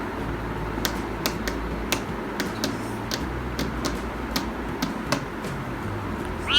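Irregular light clicks and taps, about fifteen over several seconds, over a steady low hum.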